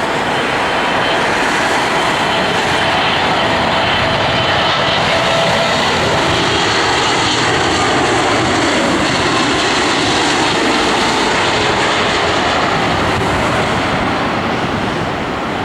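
Airliner's engines running loudly as it passes: a steady, dense rush of engine noise with faint tones that slowly fall in pitch.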